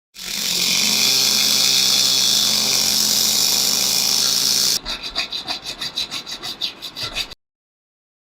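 Workshop tool work on engine parts: a steady, loud hissing tool noise with a low motor hum for nearly five seconds, then rapid scraping strokes, about six a second, that stop suddenly near the end.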